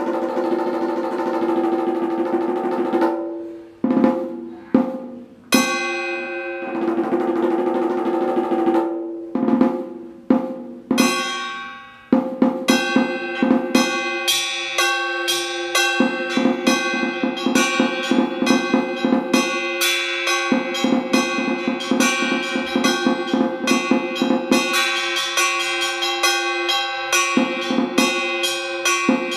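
Vietnamese trống chiến (hide-headed festival war drum) played with two wooden sticks: long rolls that swell and fade, broken by single accented strokes, then partway through a steady fast beat of strokes.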